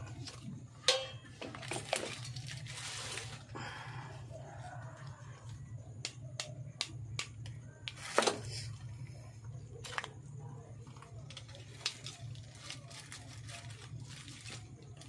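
Hands moving copper-wound coils and ferrite-ring parts about on a plastic sheet: scattered sharp clicks and crinkling, with the loudest clicks about a second in and about eight seconds in. A steady low hum runs underneath.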